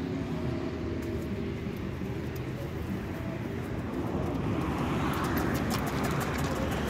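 Hoofbeats of a saddled filly on packed dirt as she is led off on a lead rope, starting about four or five seconds in as irregular light clicks, over a steady low hum.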